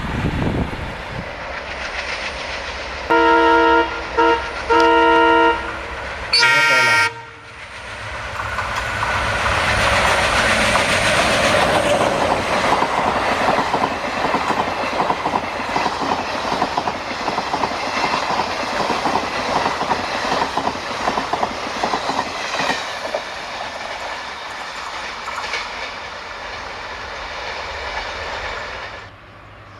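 Train horn sounding two blasts, then a short higher-pitched blast, followed by the running noise and wheel clatter of a passing train that swells and then slowly fades, cutting off near the end.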